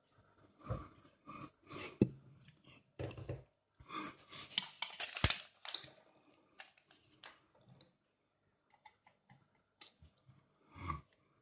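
A plastic shower head and its packaging being handled by hand: irregular clicks and light knocks, with a denser stretch of rustling and clattering about four to six seconds in.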